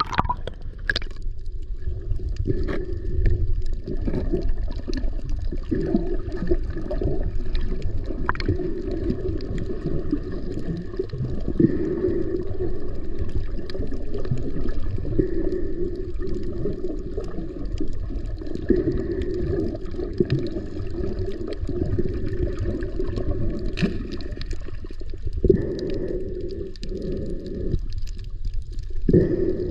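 Muffled underwater water noise as the camera is carried through the water over a reef, with a low, uneven rumble and sloshing. There is a brief splash at the start, as the camera dips through the surface.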